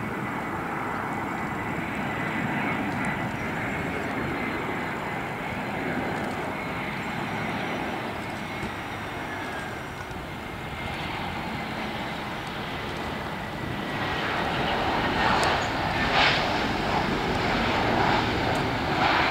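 Airbus A321 jet engines: a steady rush with a thin high whine on approach, then, from about fourteen seconds in, a louder surging rush of reverse thrust as the airliner slows on the runway after touchdown.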